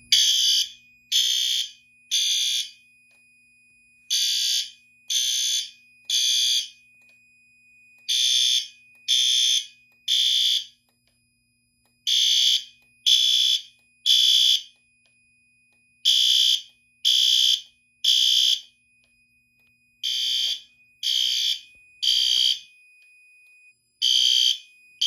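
System Sensor L-series horn strobe, set on low volume, sounding in alarm in the temporal-3 evacuation pattern: three short high-pitched blasts, a pause, then three more, repeating about every four seconds, because a pull station has been activated. A steady high tone from the control panel's buzzer runs underneath and cuts off shortly before the end as keys are pressed on the panel.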